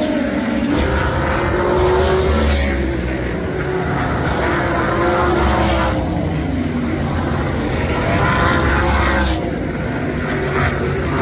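Race car engines at speed on an oval, cars passing one after another, with a pass peaking about every three to four seconds.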